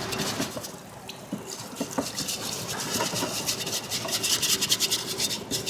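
Stiff brush scrubbing a greasy engine part in quick back-and-forth strokes, growing faster and louder about two seconds in.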